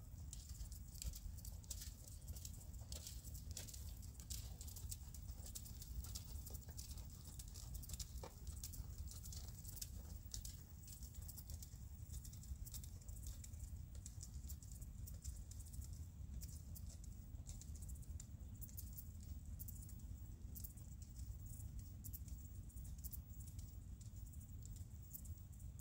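Faint outdoor background: a steady low rumble with many scattered light ticks and crackles, irregular rather than in a rhythm.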